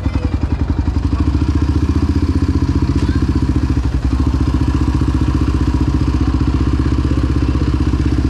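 Yamaha Raptor 700 quad's single-cylinder four-stroke engine idling hot with a steady, even, fast thumping beat.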